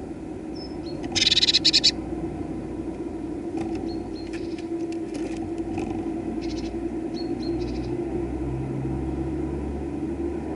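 Small garden birds give short high chirps, with a loud, rapid rattling burst about a second in. Under them run a steady low hum and a low vehicle rumble that builds in the second half.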